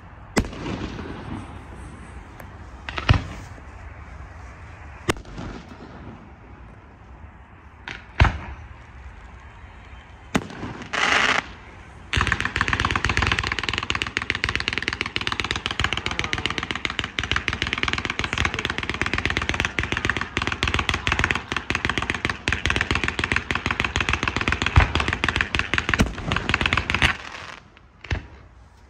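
Fireworks going off: a few separate bangs spaced seconds apart, a short hiss about eleven seconds in, then a dense, rapid crackle of many small pops lasting about fifteen seconds before it stops abruptly.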